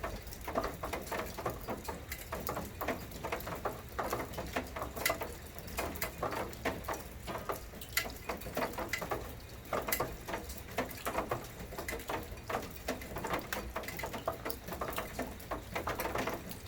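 Rain falling, with many separate drops pattering irregularly close by over a steady low background rumble.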